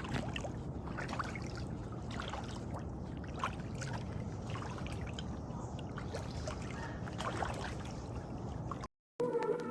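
Water lapping and trickling, a steady wash of noise with small splashes. It cuts off abruptly near the end, and music begins.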